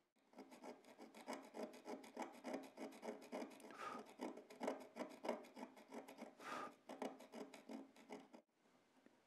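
Hobby knife blade scraping a groove into a small carbon motor brush: a faint, rapid run of short scratchy strokes that stops near the end. The notch being cut is the brush's trigger edge, copied from the worn brush it replaces.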